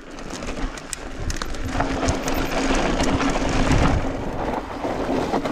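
Trek Slash 8 mountain bike descending a steep, loose gravel trail: tyres crunching over loose rock, with clicks and rattles from the bike. The noise grows louder about a second in as speed builds, and a steady low hum joins it about two seconds in.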